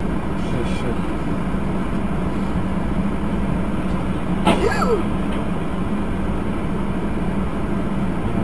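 Steady engine and road noise from inside a car, broken by one sharp crash of a car collision about four and a half seconds in.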